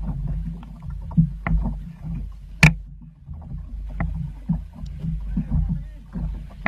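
Low rumble of a boat under way at sea, with irregular knocks and one sharp, loud crack about two and a half seconds in.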